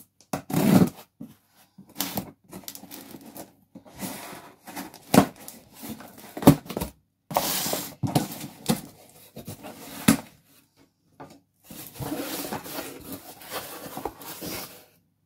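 Cardboard shipping box being opened by hand: packing tape slit and torn, flaps pulled open and the contents handled, with cardboard rustling and scattered knocks. The rustling is densest near the end.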